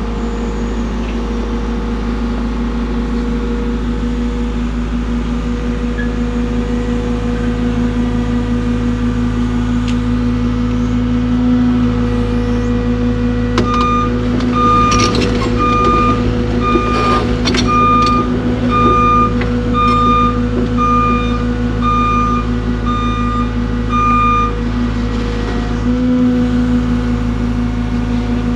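Excavator's diesel engine running at a steady speed. About halfway through, its travel alarm beeps about once a second for roughly ten seconds while the machine moves, with a few metallic clanks in the middle.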